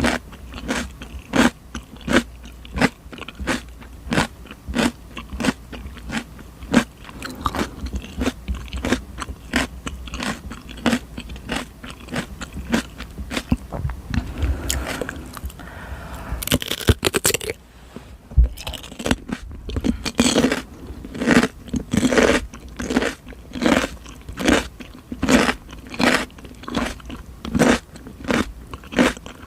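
Close-miked crunching bites and chewing of raw cucumber, wet crisp crunches coming about twice a second. A little past the middle the chewing breaks off briefly for a rustle and a fresh bite, then picks up again.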